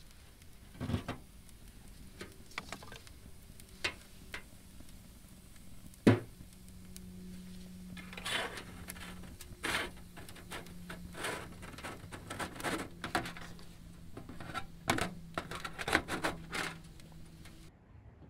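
Kindling fire crackling and popping inside a small titanium wood stove, with irregular sharp snaps that come thicker in the second half and one loud knock about six seconds in.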